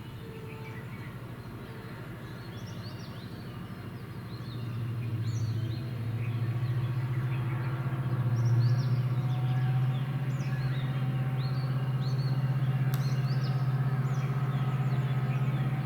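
WDG4 (EMD GT46MACe) diesel locomotive's two-stroke V16 engine running under throttle. It grows louder about four seconds in and again around eight seconds as the train accelerates. Birds chirp over it.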